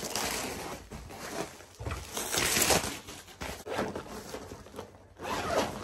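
Packaging rustling and crinkling in uneven surges as a folded storage bin is unwrapped and handled.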